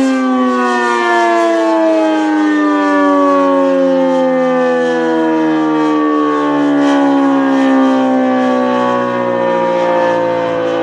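ACA P-50 outdoor warning siren sounding a loud, steady wail whose pitch slowly falls throughout, the siren winding down at the end of its test.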